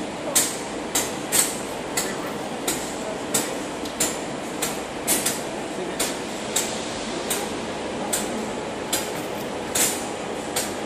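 Steady hum of railway machinery broken by short, sharp hissing clicks, roughly one every two-thirds of a second.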